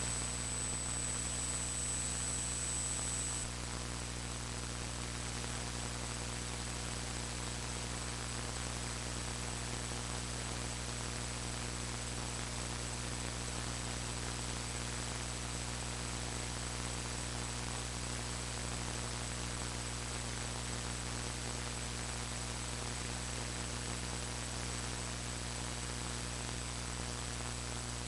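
Steady electrical hiss with a low mains hum and a thin high whine, the noise of a faulty audio recording with nothing else on it. The level dips slightly a few seconds in, and the whine grows fainter from there.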